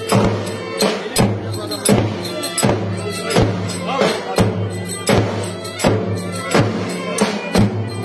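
Turkish folk dance music: a davul bass drum struck in a driving rhythm, about two strikes a second, under a melody instrument playing a winding tune over a steady low drone.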